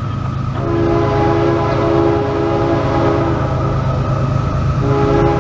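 Diesel locomotive air horn on an approaching CSX freight train, a chord of several notes blowing for a grade crossing. It starts about half a second in, sounds for about three seconds, breaks off, and sounds again near the end.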